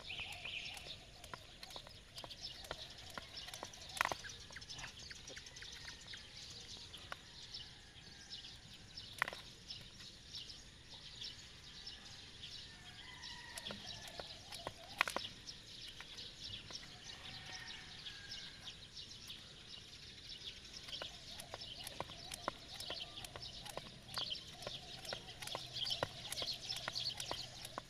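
Outdoor rural ambience: a dense scatter of small clicks and ticks, three of them louder, with a few short chirping calls about midway.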